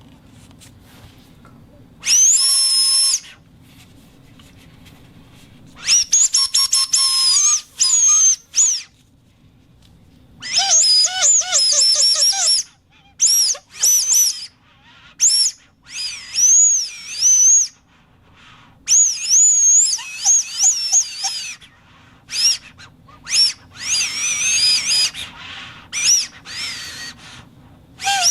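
A whistle blown in a series of short, high-pitched shrill bursts, each up to about a second long, with the pitch wavering and swooping up and down. A faint low hum sits beneath.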